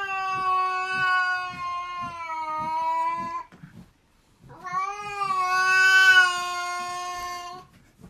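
A cat yowling: two long, drawn-out calls of about four seconds each with a short pause between, pitch held nearly level and sagging slightly.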